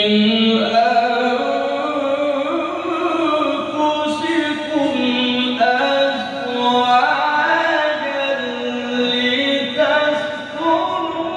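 A male qari's voice in melodic Qur'an recitation, drawing out long ornamented notes that glide and step up and down in pitch, with no break throughout.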